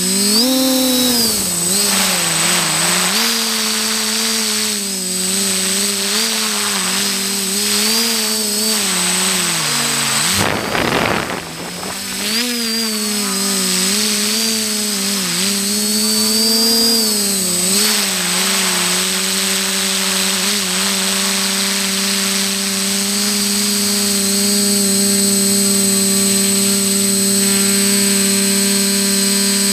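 Electric motors and propellers of a multirotor drone, heard from its onboard camera: a loud buzzing hum whose pitch wavers up and down with throttle changes. About ten seconds in, the hum drops briefly under a burst of rushing noise. For roughly the last ten seconds it holds a steady pitch.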